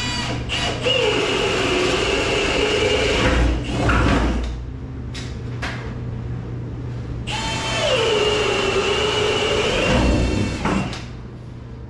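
Milwaukee cordless drill boring through wooden floor joists, in two runs. The motor whine drops in pitch as the bit bites into the wood and then climbs back as it cuts through. The first run ends about four seconds in, and the second starts about three seconds later and stops near the end, with a few handling clicks in between.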